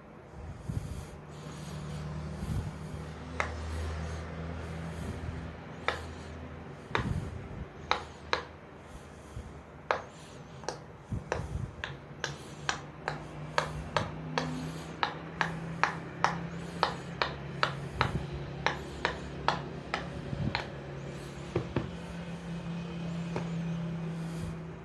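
Silicone Pop It fidget toy being pressed: a long run of sharp pops, coming about two a second through the middle stretch, over a steady low hum.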